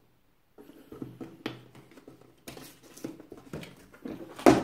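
Hands handling a long black knife-set gift box on a table: the paper band rustling and scraping as it is slid off, with a few sharp knocks of the box, the loudest near the end.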